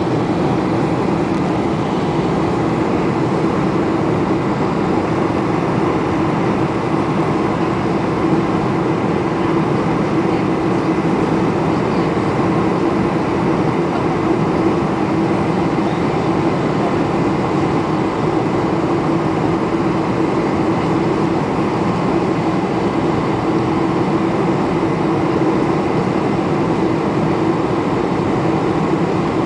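Steady cabin noise inside a Boeing 747-400 in flight: the drone of its jet engines and the rush of air along the fuselage, with a steady low hum.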